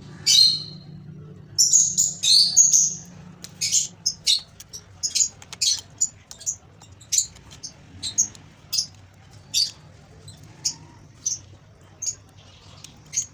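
A small bird chirping over and over in short, high, sharp chirps, several a second at first and sparser later. A steady low hum runs underneath.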